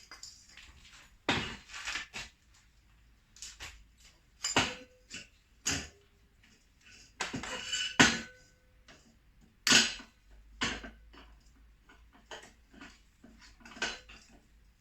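Metal tools and motorcycle shock parts clinking and knocking during hand work, as the rubber bushing is worked out of the shock eye. About a dozen irregular knocks and clinks, a few ringing briefly like struck metal.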